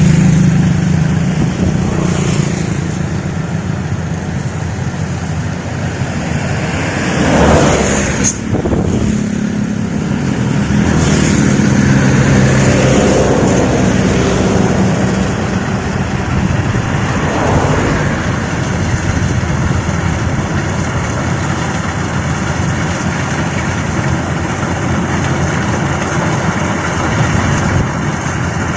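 Combine harvester running steadily while cutting rice, with its engine note held even and a few brief louder swells of noise about 8, 11 and 17 seconds in.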